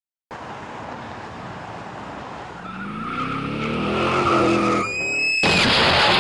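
A car engine revving higher over road noise, a brief tyre squeal, then a sudden loud crash noise about five and a half seconds in.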